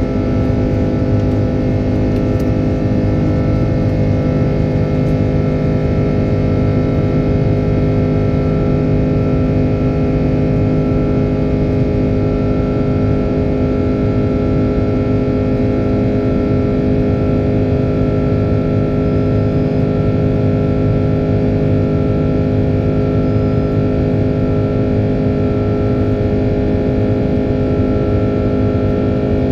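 Airbus A330-300 with Rolls-Royce Trent 700 engines, heard from inside the aircraft in flight: a loud, steady drone of jet engines and rushing air, with several constant tones under it.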